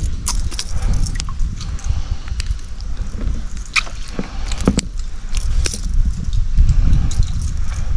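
Water sloshing and dripping against a kayak, with scattered sharp clicks and knocks, over a steady low rumble.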